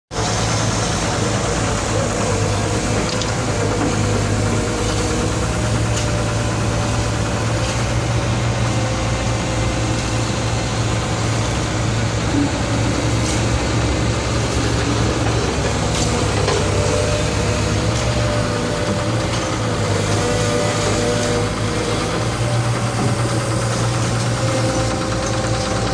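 Diesel engine of a Komatsu PW160 wheeled excavator running steadily as it digs, with a few sharp knocks now and then.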